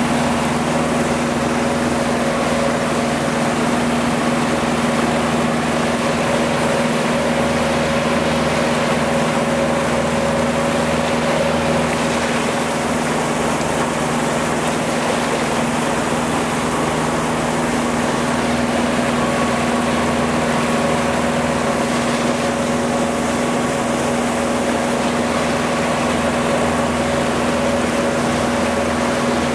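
Outboard motor running steadily under way, a constant hum with no change in speed, over the rush of water and wake along the boat's hull.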